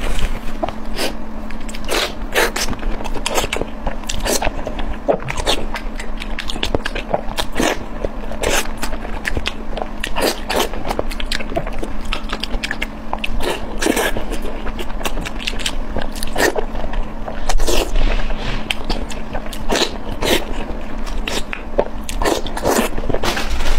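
Close-miked eating: irregular bites, crunches and wet chewing clicks as glazed meat is bitten and chewed, over a faint steady low hum.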